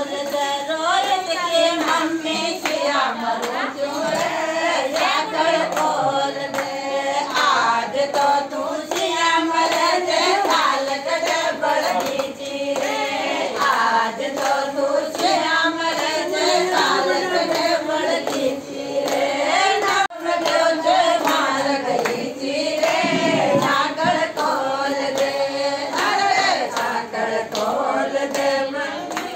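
A group of women singing a traditional wedding folk song together, their voices overlapping.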